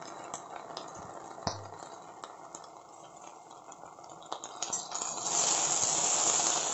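Spatula scraping and tapping a pan as chopped okra, onion, garlic and chillies are stir-fried in oil, with scattered clicks over a frying sizzle. About five seconds in, the sizzle turns much louder.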